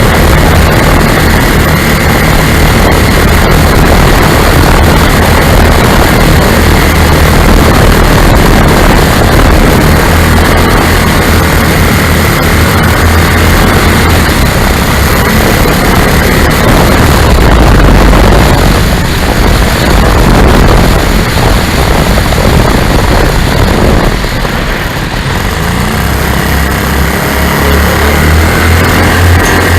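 The twin engines and propellers of a Lazair ultralight running in flight, a loud steady drone with wind noise on the microphone. The sound eases briefly about four-fifths of the way through.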